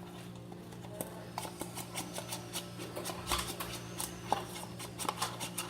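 Irregular light clicks and scrapes of a spoon working a slime mixture in a bowl, with a steady low electrical hum underneath.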